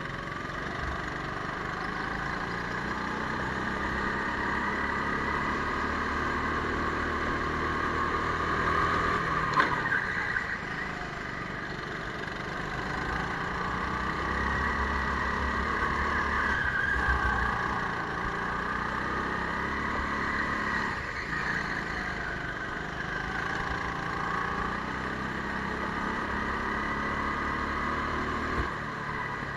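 Go-kart motor running at race speed on an indoor track, its pitch drifting up and down as the kart brakes and accelerates through the corners. There is a sharp knock about ten seconds in.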